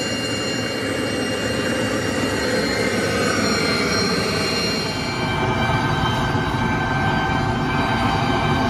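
LPG gas burner roaring steadily as it fires into a small bucket furnace.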